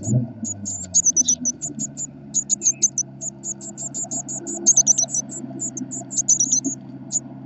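Blue tit nestlings begging: a rapid series of thin, high-pitched peeps, several a second in uneven runs, over a low steady hum.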